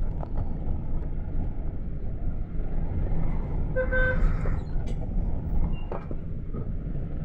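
Cabin noise of a GAZ Next minibus driving, a steady low engine and road rumble. A short car-horn toot lasting about half a second comes about four seconds in.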